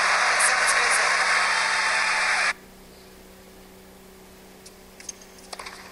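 Arena crowd applauding and cheering after a tennis point, cutting off abruptly about two and a half seconds in. Then a quiet stretch with a steady low hum and a few faint sharp knocks near the end.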